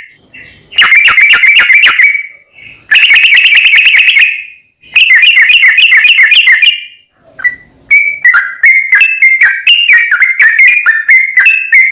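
Yellow-vented bulbul (trucukan) song from a lure recording: three loud, bubbling phrases of quickly repeated whistled notes, each about one and a half to two seconds long with short gaps, then from about eight seconds in an unbroken run of rapid notes, the long rolling song (ropel panjang) used to provoke a caged bird into singing.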